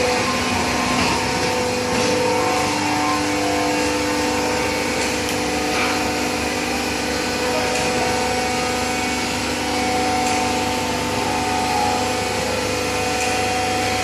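Hydraulic baler running: a steady machine drone with several held whining tones from its pump and motor, and a few faint clicks.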